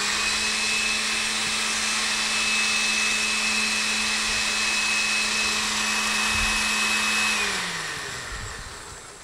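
Small countertop blender with a personal-size cup running steadily at full speed, blending a watery parsley sauce: a steady motor hum with a high whine over it. About seven and a half seconds in it is switched off and the motor winds down, its pitch falling as it fades.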